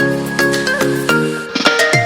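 Background music: bright pitched plucked or mallet-like notes on a steady beat, with a rising sweep near the end that builds into a dance drop.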